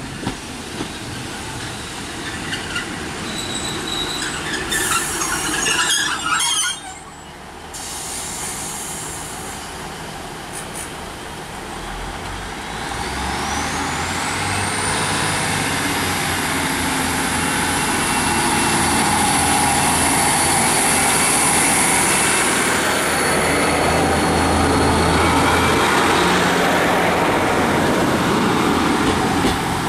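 GWR Class 150 diesel multiple unit drawing to a stand with squealing, clicking brakes. About halfway through, its underfloor diesel engines power up to pull away, with a steady low drone and a high whine that rises and then holds as the train moves off.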